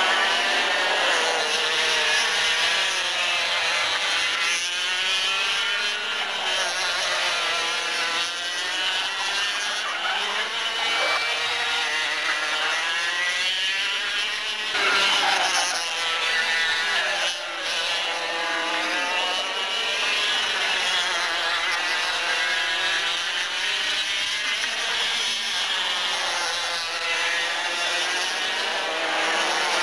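Several two-stroke Parilla kart engines racing. Their overlapping high-pitched notes keep rising and falling as the karts accelerate and lift off through the corners.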